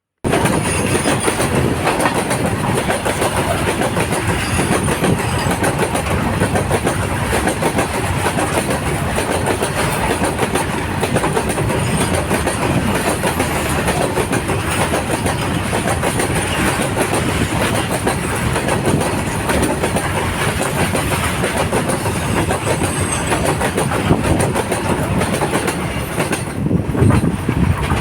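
A train running past on the railway track: a loud, steady rumble with dense rattling, starting abruptly.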